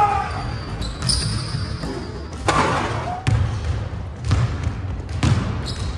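A basketball bouncing on a hardwood gym floor: several sharp, irregularly spaced bounces.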